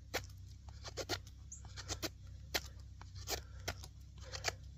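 A JXE JXO Cavalry knife's 420HC steel blade shaving and scraping a wooden stick by hand: a series of short, sharp strokes at an uneven pace, about one or two a second.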